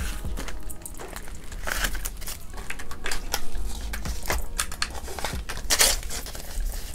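Paper banknotes rustling and crinkling as a stack of bills is handled and flipped through by hand, with irregular soft clicks and crackles from the clear plastic binder pouch they come out of.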